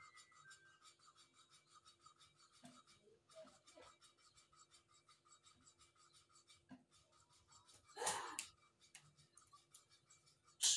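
Engine valve being lapped into its seat in an aluminium cylinder head by hand: a faint, fast, even rubbing and scraping of the valve against the seat. A louder half-second noise comes about eight seconds in, and a sharp click at the end.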